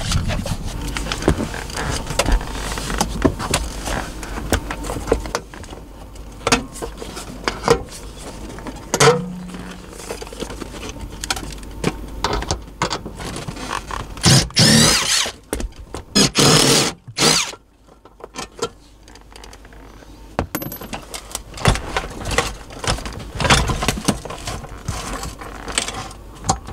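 Ridgid cordless impact driver hammering on seat-mount bolts in short bursts, the two loudest and longest about halfway through, amid clinking and knocking of the socket, tools and metal seat hardware.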